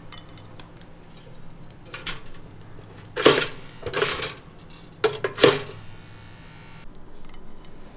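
Stainless steel two-slice toaster being loaded with bagel-thin halves and its lever pushed down: a series of sharp metallic clicks and clacks as the bread carriage drops and latches, the loudest near the middle.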